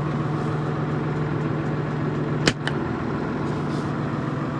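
New Holland TM140's six-cylinder diesel engine idling steadily, with a sharp click a little past halfway and a fainter one just after it.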